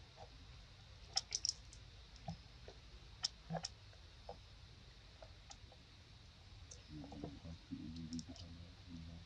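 Thin plastic cup clicking and crackling as a macaque holds it to her mouth and drinks from it: scattered sharp, light clicks, a quick cluster about a second in and more around three and a half seconds. A faint low murmur comes in over the last couple of seconds.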